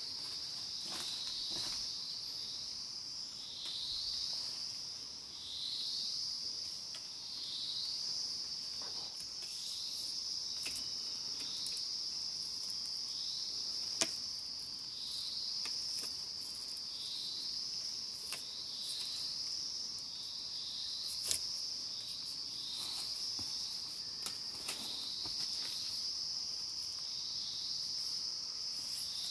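Forest insects shrilling in a steady high chorus, with repeated swooping phrases every second or two, and a few sharp clicks and snaps from sticks and vine being handled.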